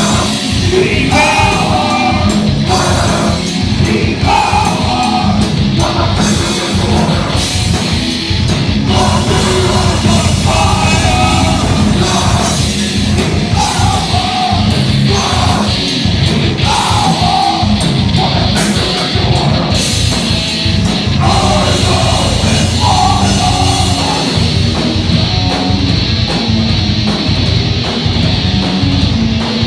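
Live heavy metal band playing loud, with a vocalist singing in short repeated phrases over the full band.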